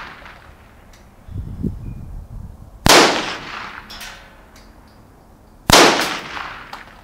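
Two shots from a Marlin Model 60 semi-automatic .22 LR rifle with a 21-inch barrel firing CCI Stinger rounds, about three seconds apart, each a sharp crack with an echoing tail. It opens on the fading echo of an earlier shot, and a low rumble comes between that echo and the first shot.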